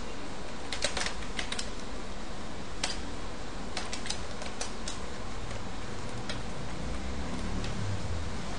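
Computer keyboard being typed on: short runs of key clicks, most of them in the first half and only a few spread out near the end, over a steady background hiss.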